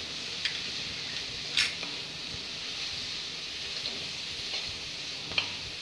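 Vegetables sizzling in ghee in a metal kadhai while a wooden spatula stirs them. A few sharp knocks and scrapes of the spatula against the pan cut through the steady sizzle, the loudest about one and a half seconds in.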